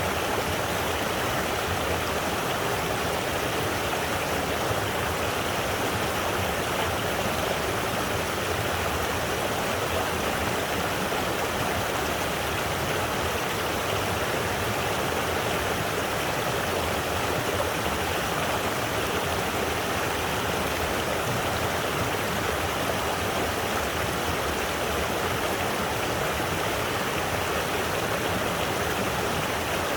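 Steady rush of falling water from a waterfall, an even, unbroken roar that does not change.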